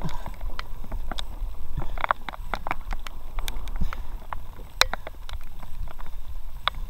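Stream water rushing around an inflatable kayak in a strong, shallow current, with a steady low rumble and irregular sharp clicks and knocks.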